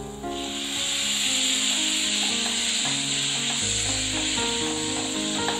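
Chopped tomatoes sizzling as they drop into hot oil and fried onion-spice masala in a pan, the hiss starting about a quarter second in and going on steadily as they are stirred.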